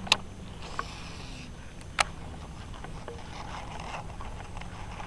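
Baitcasting rod and reel being handled: two sharp clicks about two seconds apart, with a brief faint hiss between them.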